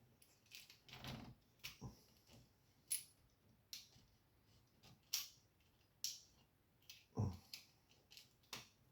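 Irregular light clicks and taps of small plastic and metal parts of a dismantled UK double socket face plate being handled and shifted, about nine in all.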